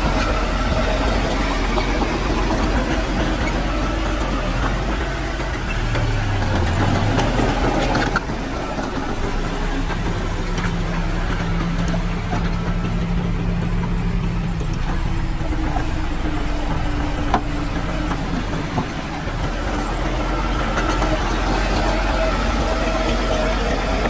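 Heavy diesel engine of earthmoving machinery running steadily at work, its pitch dipping briefly about six seconds in. There is a single sharp click about seventeen seconds in.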